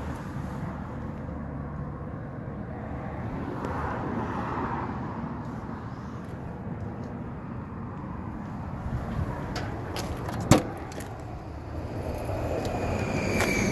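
Outdoor road-traffic ambience: a steady rumble of passing vehicles. There is a single sharp knock about three quarters of the way through, and a high whine that slowly falls in pitch near the end.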